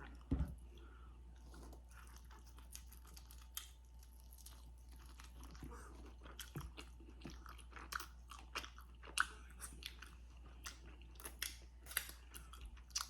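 A person biting and chewing a crispy fried chicken wing close to the microphone, with many irregular crunches.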